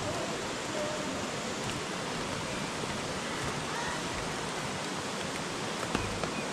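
Steady rushing outdoor noise, with faint voices of people in the distance.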